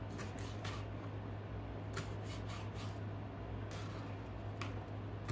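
Chef's knife cutting a green bell pepper on a cutting board: about eight separate short chops and clicks at irregular intervals, over a steady low hum.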